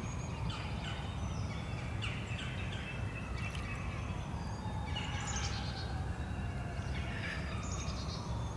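Spring birdsong: several birds singing and chirping at once, with quick high downward sweeps, over a steady low rumble.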